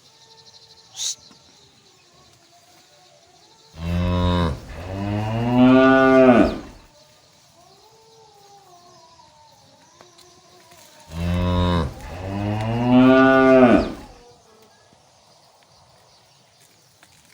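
Cow mooing twice, two long calls of about three seconds each, some seven seconds apart. Each starts low and rises in pitch.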